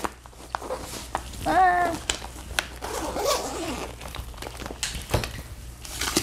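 Zipper of a soft insulated lunch bag being pulled open in a run of short strokes, with fabric rustling. A sharp knock near the end as the bag is set aside.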